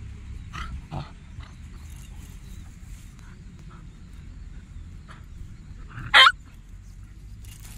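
Two dogs play-fighting, with a couple of faint short squeaks near the start and one sharp, loud yelp about six seconds in.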